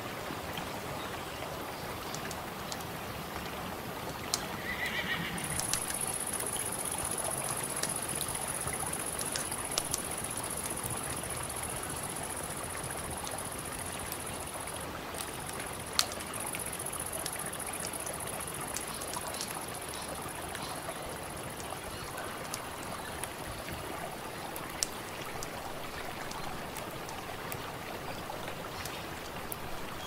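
Steady rush of river water with scattered small crackles and pops from a campfire, one sharper pop about halfway through. A high, steady buzz runs through the middle, breaking off briefly halfway, and a short animal call sounds about five seconds in.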